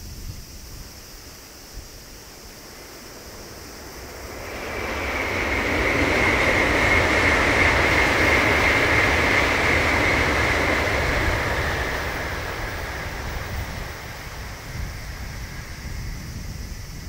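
Tokaido Shinkansen high-speed train passing at speed: a rush that builds about four seconds in, stays loud for several seconds with a high whine in it, then fades away.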